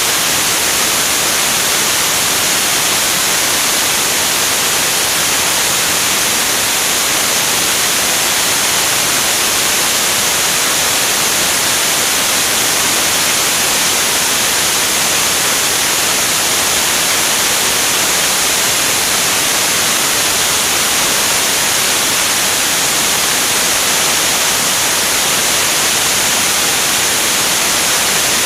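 Steady, loud rush of air over a camera mounted on the wing of a jet in flight: an even hiss, strongest in the upper range, with no engine note standing out and no change throughout.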